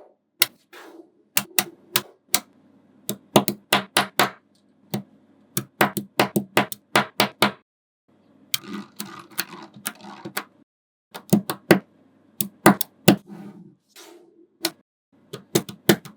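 Small magnetic balls clicking sharply as they snap together and are pressed onto a model, many irregular clicks in quick clusters. About halfway through, and briefly again later, there are stretches of softer rattling as loose balls roll and jostle against each other.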